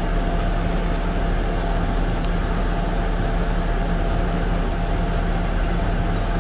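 Steady machine hum: a continuous low drone with a couple of fixed tones above it, like a running engine or motor.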